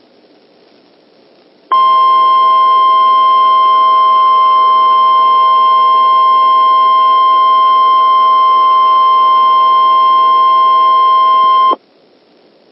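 NOAA Weather Radio 1050 Hz warning alarm tone: a single steady, loud tone that starts about two seconds in, holds for about ten seconds and cuts off sharply, over faint radio hiss. It signals that an emergency message is about to be broadcast.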